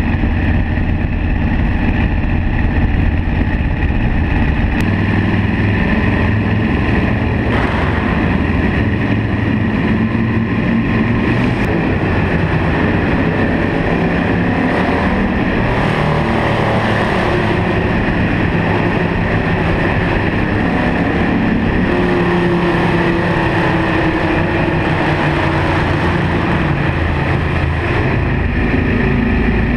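A vehicle's engine running steadily while driving, with road and wind noise, its pitch shifting slightly as the speed changes, carrying on as the vehicle enters a rock tunnel.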